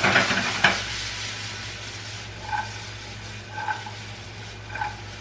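Chopped green beans frying in oil in a pan, a steady sizzle. There are two sharp clicks right at the start and three short faint squeaks later on.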